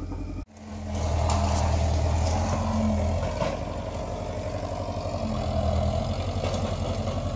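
Tracked excavator's diesel engine running steadily as the machine works, its level swelling and easing slightly. A brief gap about half a second in.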